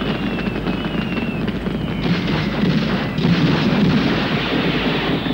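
Dense, continuous gunfire and blasts from a war film's soundtrack, crackling steadily, with a faint falling whistle early on and again near the end.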